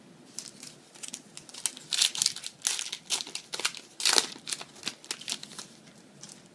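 Foil booster pack wrapper crinkling in the hands, in irregular crackly bursts, loudest about two and four seconds in.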